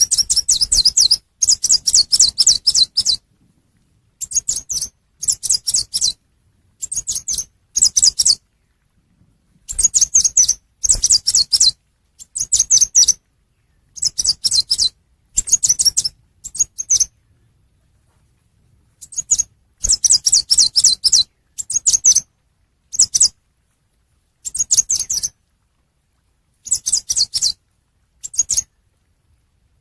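Lure-call recording of the chim sâu xanh, a small songbird: rapid runs of high-pitched chips in phrases about a second long, repeated over and over with short pauses between them.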